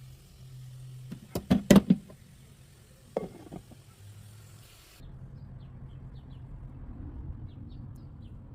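A quick cluster of loud knocks about a second in and another knock near three seconds, over a low steady hum.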